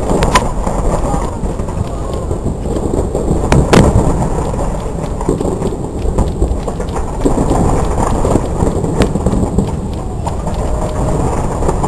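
Fireworks going off in a continuous rolling rumble, with sharp cracks standing out: two near the start, the loudest a little under four seconds in, and another near nine seconds.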